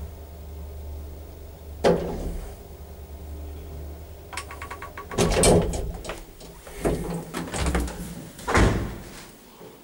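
Old Schindler single-speed lift: the motor hums low and steady as the car travels, with a thump about two seconds in. A quick run of clicks comes just before the hum fades, then several loud knocks and thuds from the doors as the lift stops and opens.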